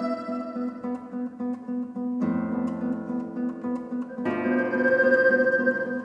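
Two nylon-string classical guitars playing a duo passage. A low note repeats quickly throughout, and full chords are struck about two seconds in and again about four seconds in.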